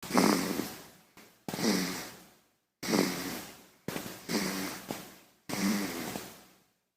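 A baby snoring: five short snoring breaths about every second and a half, each starting sharply and fading away.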